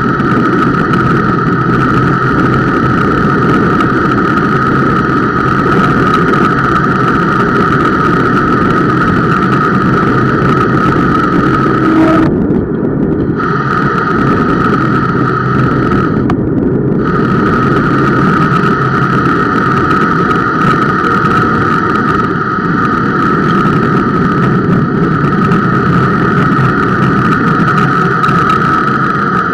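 Bicycle disc brake dragging on a steep descent: a steady squeal with the rushing of semi-metallic pads, carried loudly through the camera mount, over tyre and road rumble. The squeal breaks off twice, briefly, about halfway through. The rider blames the squeal under partial braking on the Centerlock rotor mounting.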